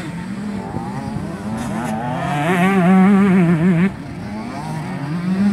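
Two-stroke motocross motorcycle engines revving on the track, the pitch wavering up and down with the throttle. One bike grows loudest from about two seconds in, then drops away suddenly near four seconds.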